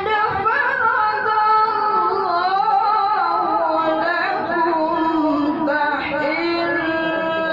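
A qori's solo voice reciting the Quran in the melodic tilawah style, holding long ornamented notes that waver and glide, with new phrases starting about four and six seconds in. The uploader puts the rough voice down to the reciter being unwell.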